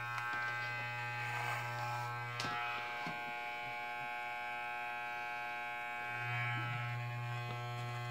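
Electric hair clippers running with a steady buzz, with a few faint clicks about two and a half to three seconds in.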